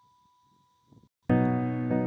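Background keyboard music. After a near-silent lull, a loud sustained chord comes in suddenly a little over a second in.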